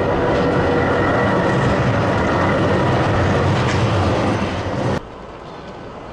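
Oslo SL95 tram running past close by: rumble of wheels on the rails with a steady electric whine. The sound cuts off abruptly about five seconds in, leaving quieter street background.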